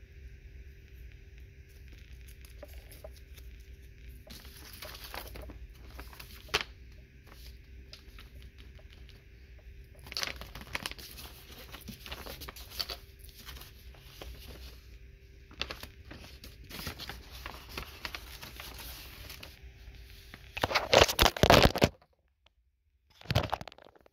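Sheets of paper being handled, rustling and crinkling in bursts, with the loudest stretch of paper crumpling and tearing near the end, followed by a brief dead-silent gap. A faint steady hum runs underneath.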